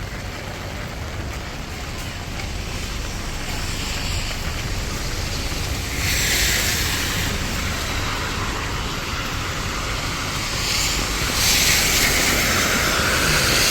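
Heavy rain hissing on a wet street, with wind rumbling on the microphone. The hiss gets louder about six seconds in and again near eleven seconds.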